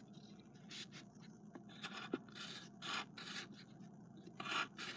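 Faint pencil strokes scratching on paper: a handful of short strokes, each a fraction of a second.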